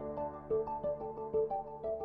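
Background music: a light melody of short pitched notes, several a second, over a low held chord that fades away.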